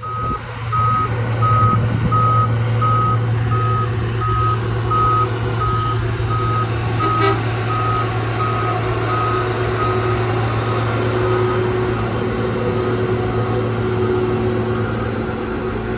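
A road-rail railcar mover's backup alarm beeping steadily, about two beeps a second, over the steady drone of its diesel engine while it moves a hopper car along the track. The beeps grow fainter toward the end, and a single sharp click comes about seven seconds in.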